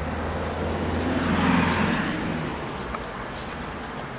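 A motor vehicle passing by: a low engine hum with a rush of noise that swells to a peak about a second and a half in, then fades away.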